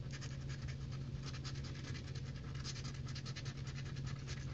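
Scratching the coating off a scratch-off lottery ticket: rapid, steady rasping strokes, many to the second, over a low steady hum.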